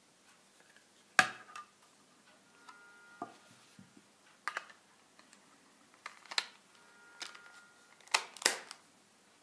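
A smartphone being handled in a flip case: a series of sharp plastic clicks and knocks as the phone is taken out of the case's hard shell and snapped back in. The loudest click comes about a second in, and two more come close together near the end.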